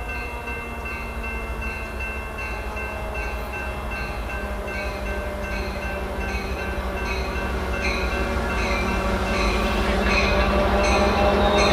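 Diesel passenger train approaching, its locomotive running steadily and growing louder throughout. A bell rings about twice a second from about a second in.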